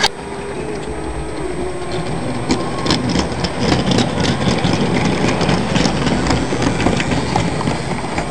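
Model train running on the layout: wheels clattering over rail joints and points, with a small electric motor whirring. The clatter gets louder about three seconds in, and there is a sharp click at the very start.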